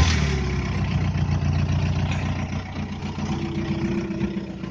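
VW Golf IV's 1.9 TDI (ALH) four-cylinder turbodiesel, fitted with a 96 kW-version turbo and Sprint 764 injectors, idling just after starting. The revs settle from the start-up flare into a steady idle, and a faint steady whine joins about three seconds in.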